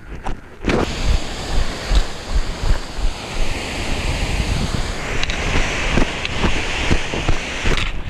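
Steady rush of a snowmelt waterfall cascading over granite, cutting in abruptly just under a second in, with footsteps on rock underneath.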